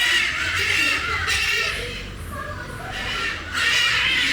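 A bird calling loudly in harsh, wavering bouts, a long one at the start and another about three seconds in.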